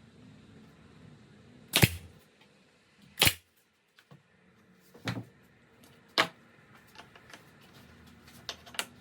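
Brad nailer firing brad nails into a melamine strip: four sharp shots about a second or so apart, then two softer ones in quick succession near the end.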